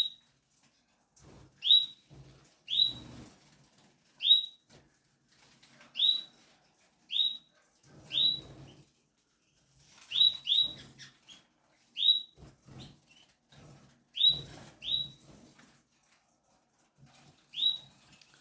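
A bird giving short, high chirps that drop in pitch, about one a second, with low rustling and soft thumps between them.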